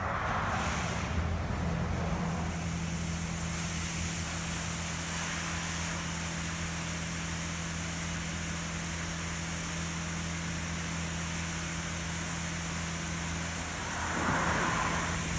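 Oasis Typhoon in-bay automatic car wash running: the hiss of high-pressure water spray, which swells about two seconds in, over a steady low hum.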